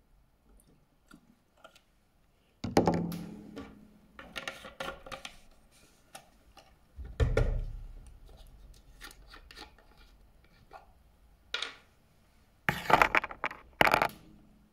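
Scattered knocks, clicks and rustles of small objects being handled and set down on a tabletop, with a low thump about seven seconds in and a loud cluster of clatters near the end.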